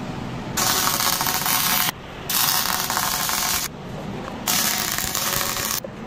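MIG welder arc crackling and sizzling in short runs on steel: three welds of about a second and a half each, with brief pauses between, and another starting near the end.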